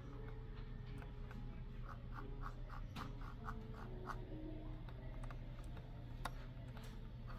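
Logitech Pebble Mouse 2 M350s being handled and slid on a wooden desk, making soft scraping. A quick run of light ticks comes about two to four seconds in, and a single sharper click comes near the end, over a low steady hum.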